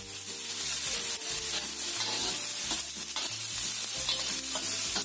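Chopped onion, shallot, garlic and ginger sizzling in hot oil in a wok while a spatula stirs them, with repeated short scrapes of the spatula against the pan.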